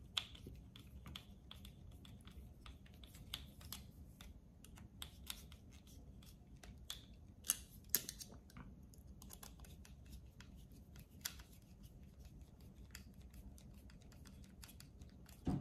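Small Phillips screwdriver driving tiny screws into a plastic electronics housing: faint, irregular clicks and ticks as the driver tip seats and turns and the case is handled, with a couple of sharper clicks near the middle.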